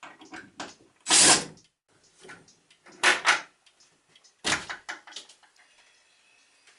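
Knocks and clatters from demolition work, as a basement wall and its shelving are taken down: three loud bangs about a second and a half apart, with smaller clicks and rattles between.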